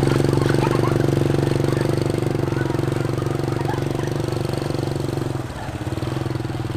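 Small motorbike engine running at a steady pitch under light throttle, easing off slightly about five and a half seconds in.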